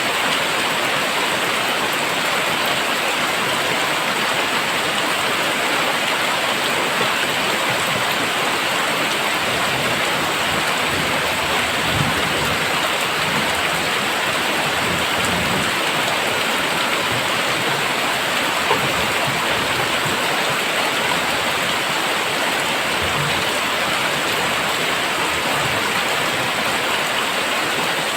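Heavy rain falling steadily in a downpour, a constant dense hiss of drops on surfaces, with a faint low rumble in the middle.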